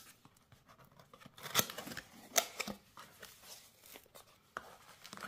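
Cardboard box being opened by hand: the tuck flap is pulled out and the lid lifted, giving scattered scrapes and rustles of card and paper with a few sharp clicks.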